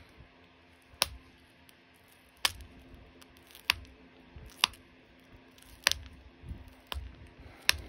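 Copper-tipped pressure flaker popping small flakes off the edge of an opalite (man-made glass) arrowhead, each flake coming off as a sharp click, about seven times roughly a second apart.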